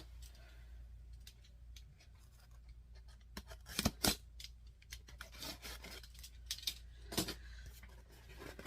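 A cardboard mystery box and its packaging being opened by hand: faint scattered scratching, rubbing and clicking, with a few sharper snaps about four seconds in and again near seven seconds.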